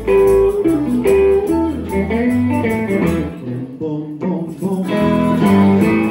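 Live blues band playing an instrumental passage: electric guitars over a walking upright double bass, with harmonica. Bent, sustained notes carry the lead.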